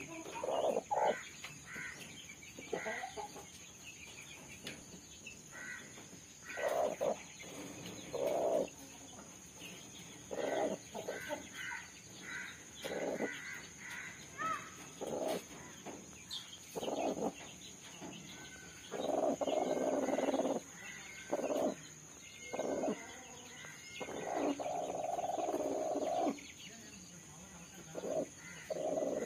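Broody hen sitting on her eggs, making repeated short clucks and several longer drawn-out calls, two of them lasting about two seconds, as a hand reaches in beside her.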